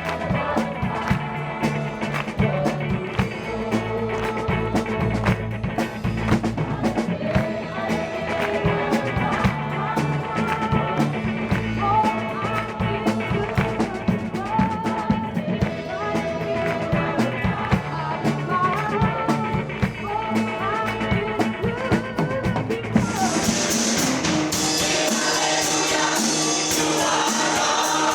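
Gospel music with singing over a band's drums and bass. About 23 seconds in it changes to a fuller choir sound with a steady shimmer of tambourine or cymbals.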